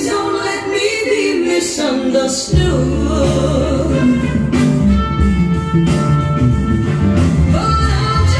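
A song with a singing voice over instruments. The bass is absent at first and comes in strongly about two and a half seconds in.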